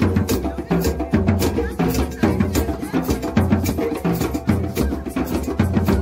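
Drum group playing a fast, steady beat on djembes and a drum kit, with sticks on a snare drum and cymbal, over music with a bass line.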